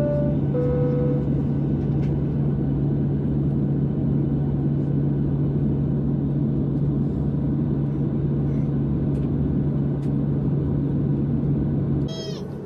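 Steady drone inside an airliner cabin with a strong low hum, heard while the aircraft is being de-iced. A two-note high-then-lower cabin chime sounds at the start. Near the end the drone cuts off abruptly to a quieter, different sound.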